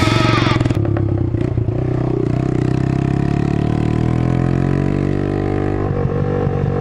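Suzuki Intruder 125 motorcycle's single-cylinder engine running steadily, its pitch dipping slightly and rising again; a louder noisy sound fades out within the first second.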